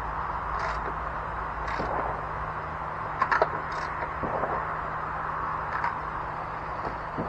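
Quick sharp clicks from handling tools and parts during work on the mower, with a fast triple click about three seconds in and a few single ones, over a steady background hum. A faint high chirp repeats about once a second.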